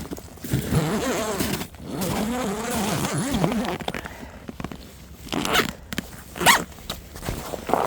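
A zipper on an ice fishing tent's door is pulled open in a few quick strokes in the second half. Before it comes a low, wavering, voice-like sound.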